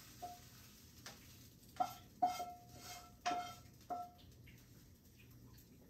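About seven light clinks of a utensil against cookware, each with a brief ringing tone, as cooked scrambled eggs are scraped out of a 10-inch Granitestone nonstick frying pan into a bowl. The clinks die away about two-thirds of the way through.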